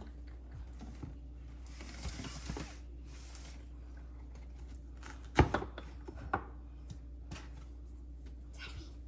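Fruit being cut with a knife on a cutting board: a few scattered knocks of the blade on the board, the loudest about five and a half seconds in, over a low steady hum.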